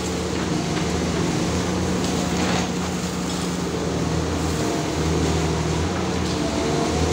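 Demolition excavator's diesel engine running in a low, continuous drone, its note changing a few times as the arm works, over an even hiss. About two and a half seconds in there is a brief crackle of concrete rubble breaking and falling.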